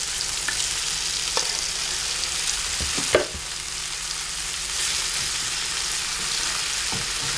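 Food sizzling steadily in a hot frying pan as chopped tomato is tipped in and stirred with a knife, with a few light knocks and scrapes of the knife against the pan, the loudest about three seconds in.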